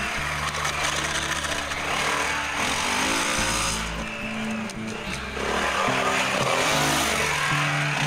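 Four-stroke single-cylinder Honda XR dirt bike engines revving as the bikes ride past on a dirt trail. Background music with a stepping bass line plays throughout.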